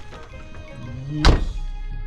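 Background music with one heavy thunk a little over a second in.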